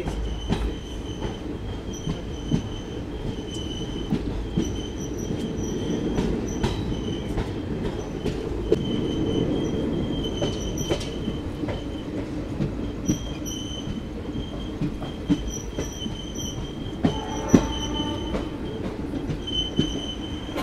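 Ranikhet Express passenger train running on the rails: a steady low rumble with scattered clicks of the wheels over rail joints, and a high wheel squeal that comes and goes. There is a louder knock near the end.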